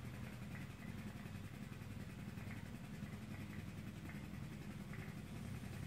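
Faint, steady low hum of an engine running in the background.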